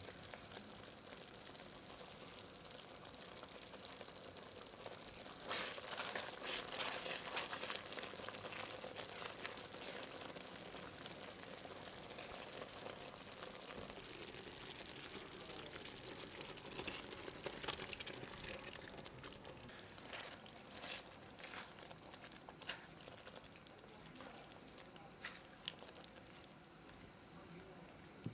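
Faint sizzling and simmering of food in a pan, which grows louder and denser about five seconds in, with scattered sharp clicks and crackles through the rest.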